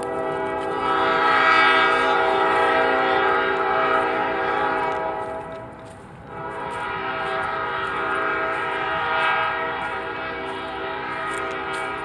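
A horn sounding two long, steady blasts, each a held chord of several tones; the first lasts about five seconds and the second starts about six seconds in.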